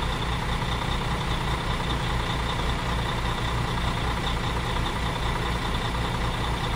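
Truck engine sound effect running steadily, with an even low pulse throughout.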